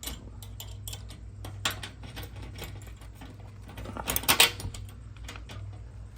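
Ratchet wrench clicking in short runs while a nut is run onto a lid latch screw, with small metal clicks from the hardware. A louder, quick burst of clicks comes about four seconds in.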